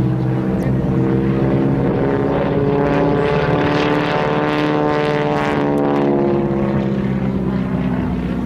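Piston engines and propellers of a formation of two North American AT-6D Texans and an Extra 300 aerobatic plane droning overhead. The sound swells louder and brighter about halfway through as the planes pass closest, then eases off.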